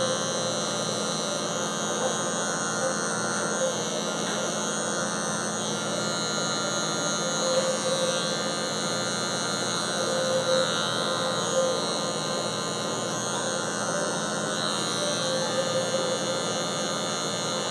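Cordless electric hair clipper with a no. 1 guard running steadily with an even buzz, cutting along the neckline to mark a finger-wide guide line in a fade.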